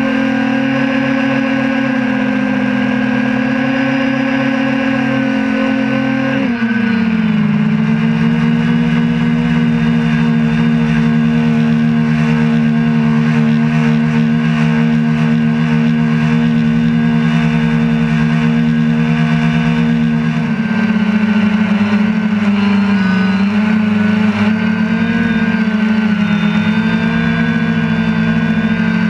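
DJI Phantom 2 quadcopter's motors and propellers running steadily in flight, heard from on board. The pitch steps down about six seconds in and wavers from about twenty seconds in.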